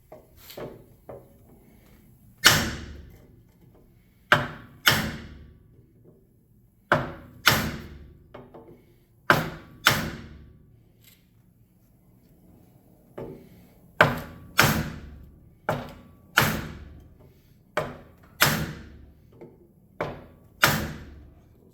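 Hammer blows striking a 2007 Suzuki GSX-R 600 aluminium front wheel rim to knock out a dent, about twenty hard metallic whacks at uneven intervals, often in quick pairs, each ringing briefly. A few lighter taps come first.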